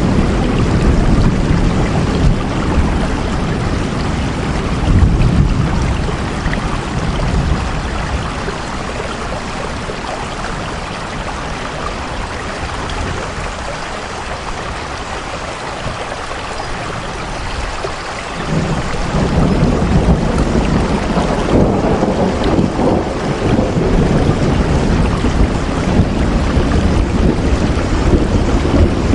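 Steady heavy rain with a deep rumbling low end that eases off through the middle, then swells back abruptly about two-thirds of the way in.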